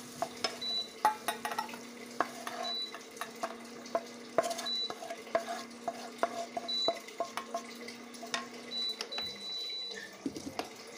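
Wooden spatula scraping and tapping curry out of a non-stick frying pan into a steel bowl, with many small knocks and clatters of pan against bowl. A steady hum runs underneath, and a short high beep repeats about every two seconds.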